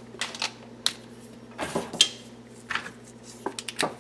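Light clicks and clinks of small tools and parts being handled and set down on a stainless steel worktable, about eight scattered knocks, over a faint steady hum.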